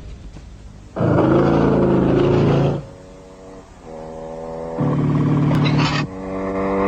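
Motorcycle-and-sidecar engine running hard as it rides along, with two loud spells: one about a second in, and a second after a gradual build, about five seconds in.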